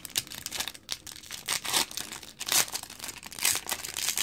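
Foil trading-card pack wrapper being torn open and crinkled by hand, in a run of irregular crackling rips, the loudest about halfway through and again near the end.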